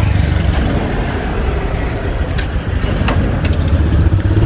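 Steady low rumble of a motor vehicle engine running close by, with a few light clicks over it.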